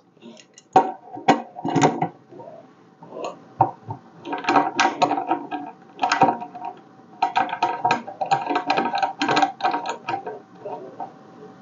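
Clicks, clinks and rattles of teleprompter parts (bar, stand and fittings) being handled and fitted together, coming in runs with short pauses and dying down near the end.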